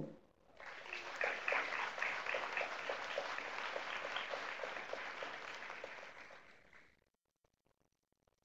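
Audience applauding, starting about half a second in and dying away about seven seconds in.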